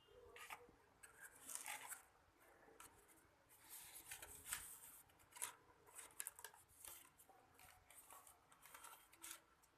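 Scissors snipping and paper being handled, in short, scattered, quiet strokes.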